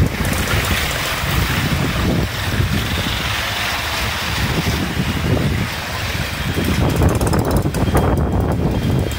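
Floodwater splashing and rushing as motor vehicles drive through it, with engines running and wind buffeting the microphone.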